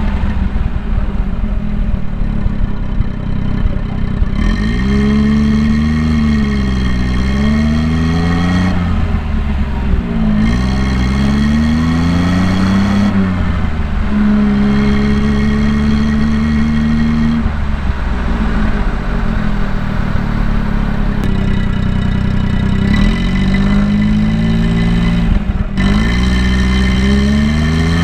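Daihatsu Midget II's small three-cylinder engine heard from inside the cabin while driving with a manual gearbox: the revs climb and fall over and over, and the pitch drops suddenly several times, as at gear changes.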